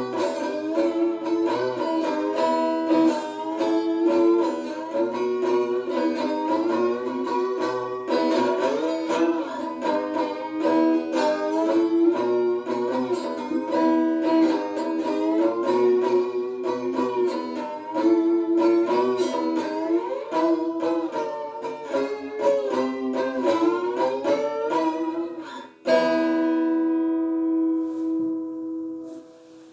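Three-string electric cigar box slide guitar (diddley bow) played through a small portable amp on a clean setting: a run of picked notes with pitches sliding between them. About 26 seconds in it ends on one struck chord left ringing and fading.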